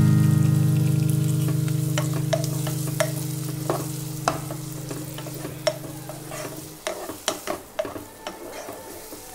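Raw chicken pieces sizzling in butter in a nonstick pan, stirred with a wooden spatula that gives repeated short scrapes and taps against the pan. A low held tone, louder than the stirring, fades out over the first seven seconds.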